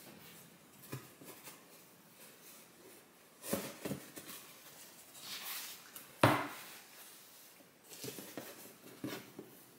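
Handling sounds as a cross-stitch piece on a wooden scroll frame is lifted and unrolled: light fabric rustling and a few wooden knocks, the sharpest about six seconds in.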